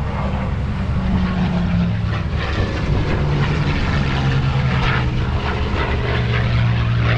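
P-51D Mustang's Packard Merlin V12 engine running loud and steady as the fighter flies past, its pitch falling about three to four seconds in as it goes by.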